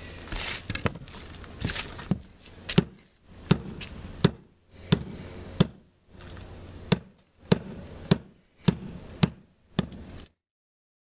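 Scraping and light knocks at first, then hand-hammer blows on the roof deck: about a dozen sharp strikes at a steady pace, roughly one every two-thirds of a second, with a short pause midway. The sound cuts off suddenly shortly before the end.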